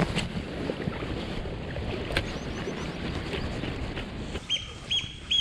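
Mountain stream rushing steadily. About four and a half seconds in, a bird starts a repeated clear call, three arched notes about half a second apart.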